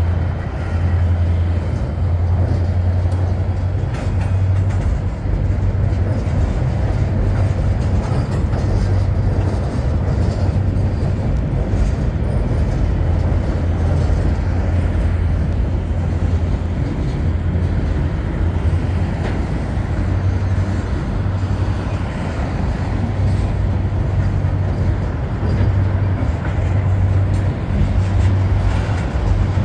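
Freight train of BNSF refrigerated boxcars rolling across a trestle: a steady, loud rumble of wheels on rail with a low hum underneath and a few faint clicks.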